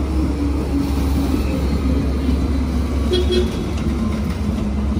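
Alstom Citadis X05 light rail tram passing close by, a steady low rumble with a pitched electric hum that drifts up and down. A short higher-pitched tone sounds about three seconds in.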